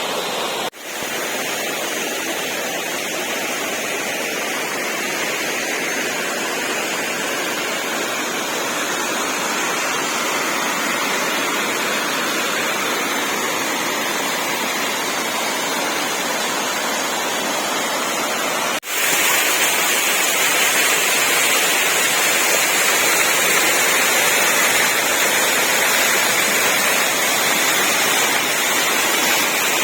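Waterfall: a steady rush of falling water. It drops out briefly about a second in and again about two-thirds through, and is louder after the second break.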